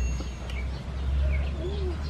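Birds calling in the background: scattered short chirps, with a lower curved call near the end, over a steady low rumble.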